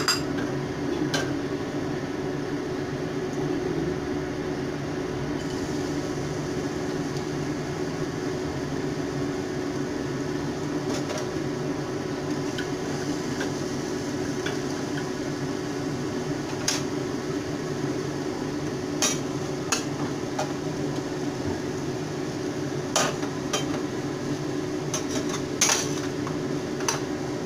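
Chopsticks and utensils knocking and clinking against a small frying pan and pots every few seconds while food is stirred, over a steady low hum.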